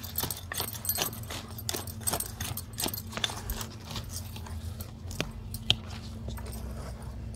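Dry, lumpy soil being scraped and crumbled by hand around the stems of taro plants while earthing them up: an irregular run of gritty scrapes and crunches, several a second, with one sharper click about two-thirds of the way through.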